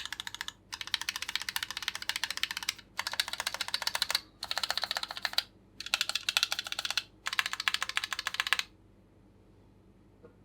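Keychron Q8 mechanical keyboard being typed on quickly, a dense run of key clacks in about six bursts with short pauses between them, stopping a couple of seconds before the end.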